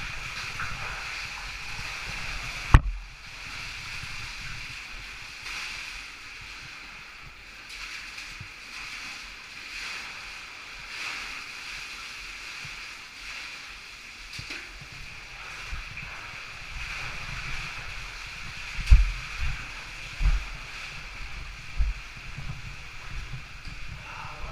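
Water running steadily through a cave passage, with one sharp knock about three seconds in and several low thumps near the end.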